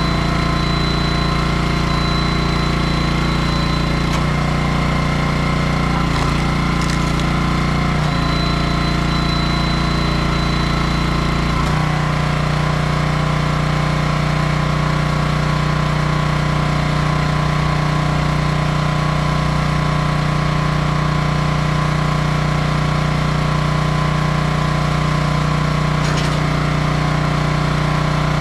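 Small engine of a 27-ton log splitter running steadily at speed, its pitch dipping briefly a few times in the first twelve seconds as the splitter takes load. A thin high whine comes and goes twice early on, and there are a couple of faint short clicks.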